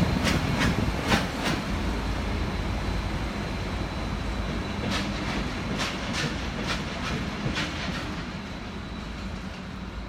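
Two coupled diesel locomotives running past and pulling away, their engines a steady low hum, with sharp wheel clicks over the rail joints and points in clusters, several in the first second and a half and more from about five to eight seconds in. The sound fades a little toward the end as they recede.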